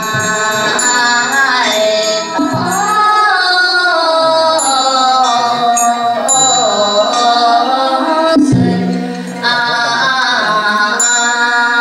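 Ritual chanting in long, wavering melodic phrases, with a breath break near the end. A small hand bell rings over it in short stretches, and there are a couple of knocks.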